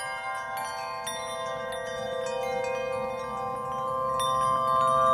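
Chimes ringing: struck tones every second or so that ring on and overlap, slowly growing louder.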